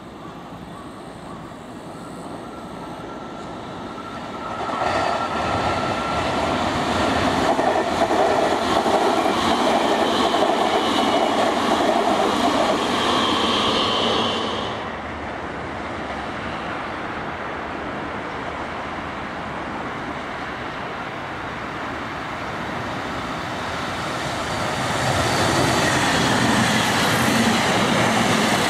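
JR Kyushu 883 series 'Sonic' electric limited express trains passing at speed, with rail and wheel noise carrying a few steady whining tones. The noise swells about five seconds in, holds loud for some ten seconds and drops away suddenly. Near the end another passing train rises.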